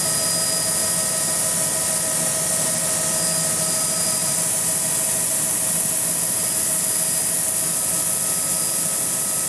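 Aircraft cabin noise in flight: the engine and rushing air make a steady hiss with several steady whining tones over a low hum, unchanging throughout.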